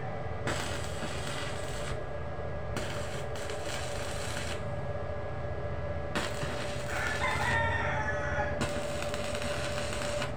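Stick (arc) welding: short bursts of crackling from the electrode arc, a second or two each, as steel matting is tack-welded to square bar. A drawn-out animal call sounds over the arc about seven seconds in.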